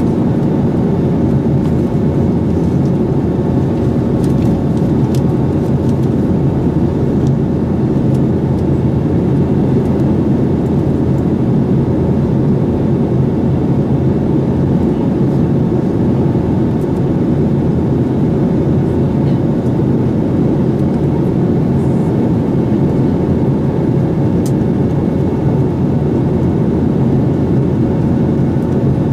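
Steady cabin noise of a Boeing 737-800 in flight, heard from a seat over the wing: the CFM56 engines and rushing air make a loud, even rumble with most of its weight low and no change in level.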